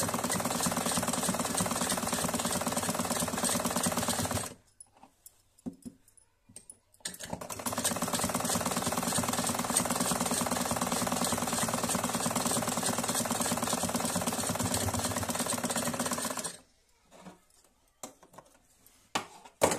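Domestic sewing machine stitching a seam, running steadily, stopping about four and a half seconds in and starting again some two and a half seconds later for about nine seconds more. After it stops, a few small clicks and the snip of scissors cutting the thread, the sharpest one near the end.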